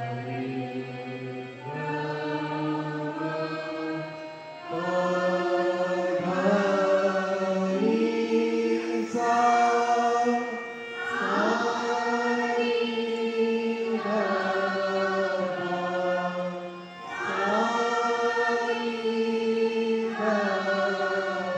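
Carnatic vocal singing: long held notes that slide up and down between pitches, over a faint steady drone. The singing grows louder about five seconds in, with brief pauses between phrases.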